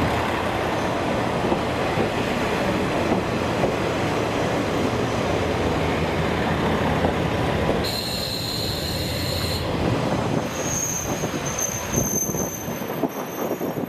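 Diesel railcar running through the station with a dense rumble from wheels and engine, then high-pitched wheel or brake squealing that comes and goes over the last few seconds.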